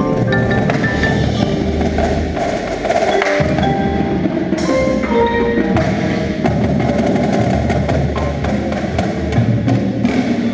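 Indoor percussion ensemble playing: quick xylophone and glockenspiel notes mixed with many sharp drum and wood-block strikes over a sustained low bass.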